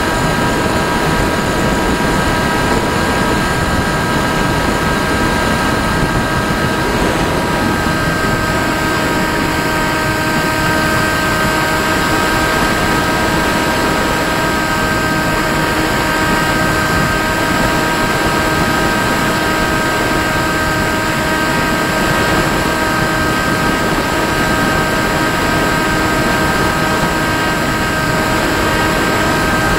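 Onboard sound of an FPV model aircraft in flight: its motor and propeller whine at a steady pitch, held at constant throttle, over a constant rush of noise.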